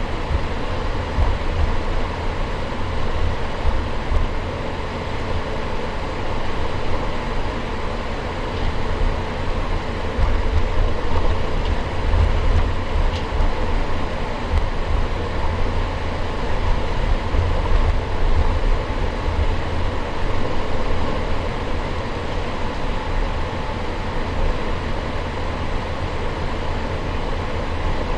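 Inside the cabin of an Airbus A350-900, its Rolls-Royce Trent XWB engines run at low power with a steady hum, over a deep, uneven rumble of the aircraft rolling on the ground.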